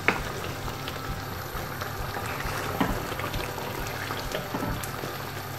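Curry gravy simmering and sizzling in a frying pan as chicken pieces are stirred through it with a spatula, with a few faint knocks of the spatula against the pan.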